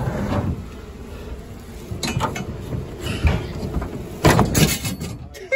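Scraping and rustling with several sharp knocks, close to the microphone, as a sheet-metal air handler and its flex duct are shifted and lifted into place. The loudest knocks come in the second half.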